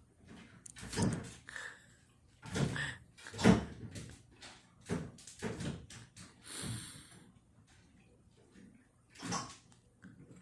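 A noise-making toy ball knocked and bumped about by a pet chasing it: irregular thumps and knocks, the loudest about three and a half seconds in, then a few scattered ones near the end.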